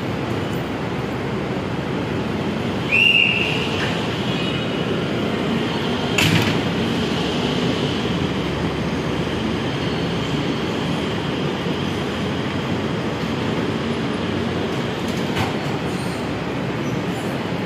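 Steady running noise of an electric metro train and its station platform. A brief high rising tone comes about three seconds in, and a sharp knock about six seconds in.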